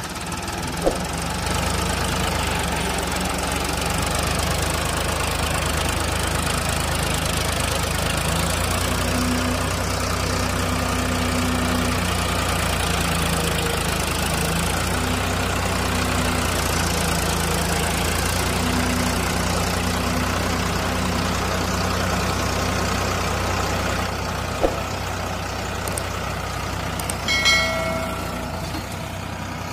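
Farmtrac 60 tractor's three-cylinder diesel engine running steadily under load while it pulls a seed drill through sand. A short high-pitched tone sounds near the end.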